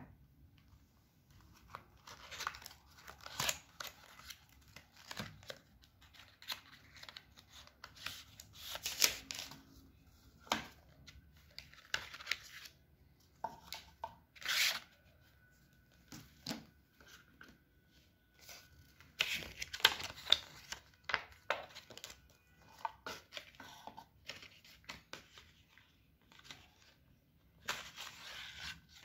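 Hands handling a smartphone's cardboard box, lid and paper inserts, making short, irregular bursts of paper and cardboard noise with quiet gaps between them.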